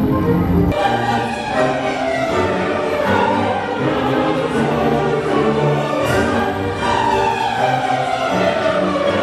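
Orchestral music with a choir singing, dramatic and classical in style; the sound shifts abruptly about a second in as the choral and orchestral music takes over.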